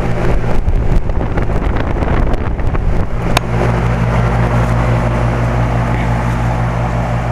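2008 Carrier 2.5-ton central air-conditioner condensing unit running steadily, its Copeland Scroll compressor humming under the whoosh of the condenser fan. Wind gusts buffet the microphone for the first three seconds or so, and there is a single sharp click about three and a half seconds in.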